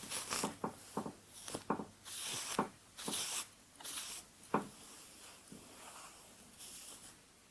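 Close-up hairbrush strokes through hair, a quick run of short scratchy strokes that stops after about four and a half seconds.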